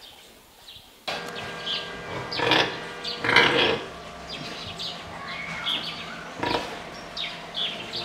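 Piggery ambience starting about a second in: pigs grunting and squealing now and then, the loudest call a little over three seconds in, with small birds chirping and a faint steady hum.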